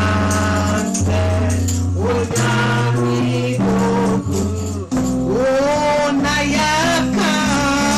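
Gospel worship music: singing over a band with a steady bass line and tambourine.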